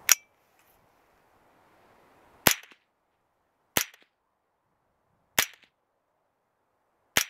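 Kriss Defiance DMK22 semi-automatic .22LR rifle firing unsuppressed CCI subsonic hollow-point rounds. Five single sharp shots, one at the very start, each about one and a half to two and a half seconds after the last. The rifle cycles each round cleanly.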